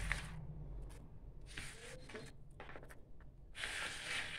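Hands scraping and gathering garlic cloves and herbs off a plastic chopping board into a steel bowl: a few short scraping, rustling sounds, the longest near the end.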